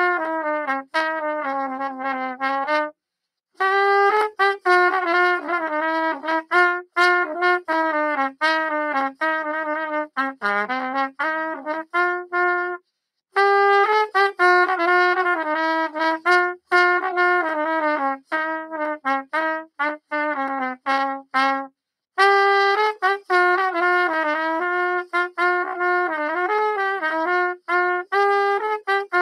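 Solo rotary-valve brass instrument playing a melody of quick, separately tongued notes in its middle-low register, in three phrases with short breath pauses between them.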